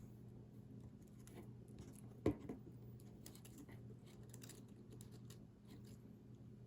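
Faint small clicks and scratches of fingers and tools on the opened iPhone 5's internals as its ribbon cables are pressed back onto their connectors, with one sharper click about two seconds in, over a steady low hum.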